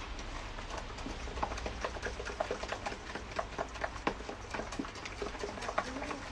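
Utensil beating batter fast in a stainless steel mixing bowl, clicking against the metal several times a second in a quick, steady rhythm.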